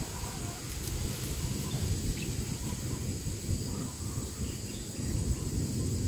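Outdoor ambience: a steady, high insect drone under a low, uneven rumble, with a few faint, short bird chirps.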